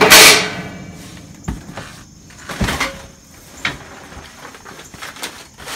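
Steel cart panels and parts clattering as they are handled and unpacked from a cardboard box. One loud clang right at the start rings on briefly, then a few lighter knocks follow.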